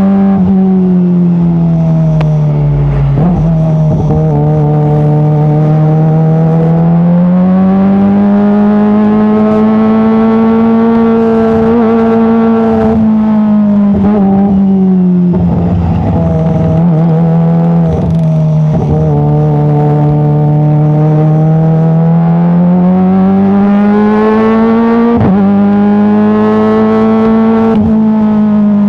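Kawasaki ZX-25R's 249 cc inline-four running through a full-system Arrow titanium exhaust at steady mid revs. The engine note rises and falls slowly and smoothly several times, with a few brief crackles where the revs drop.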